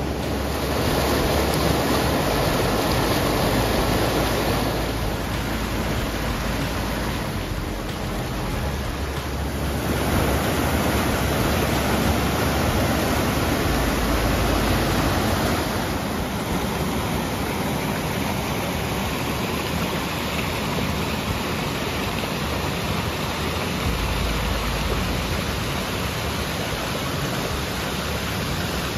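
River water rushing through rocky whitewater rapids in a gorge, a steady hiss that swells and eases a few times.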